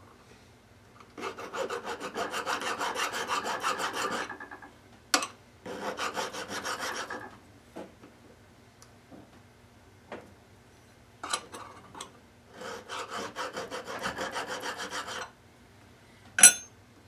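Hand file scraping back and forth across the end of a small metal piece clamped in a filing jig, squaring the end, in three runs of quick, even strokes. A few light clicks fall between the runs, and a single sharp clack comes near the end.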